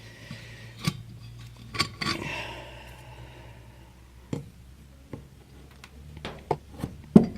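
Scattered light clicks and clinks of metal automatic-transmission parts being handled on a workbench, with a short scrape about two seconds in.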